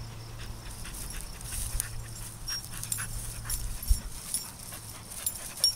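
A dog and a walker moving through tall leafy field plants: irregular rustling and brushing of the foliage, with a dull thump about four seconds in.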